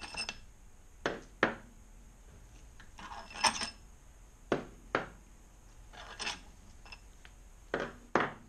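Scattered metallic clinks and knocks of hand tools and removed steel bolts being handled and set down on a wooden workbench, about nine separate strikes, some ringing briefly.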